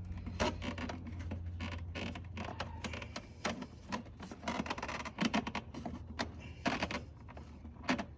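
Irregular clicks, taps and scraping of plastic air intake parts being handled and fitted into place, over a low steady hum that fades out about three seconds in.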